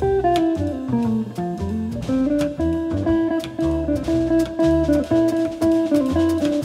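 Live jazz: an archtop electric guitar plays a single-note melodic line that falls then climbs back in the first two seconds, over walking double bass and a drum kit with regular cymbal strokes.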